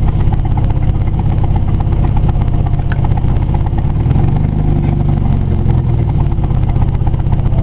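Car engine and road noise heard from inside the cabin, a steady low drone whose pitch shifts about halfway through.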